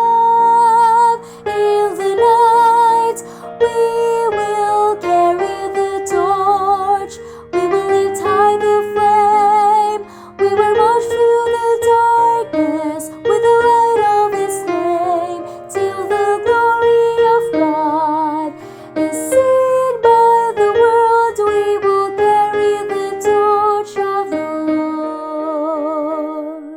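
Mezzo-soprano voice singing a choral part with vibrato on held notes, over piano accompaniment.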